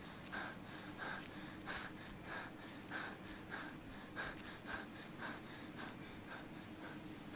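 A man breathing heavily and fast, short rasping breaths about every half second, which stop near the end.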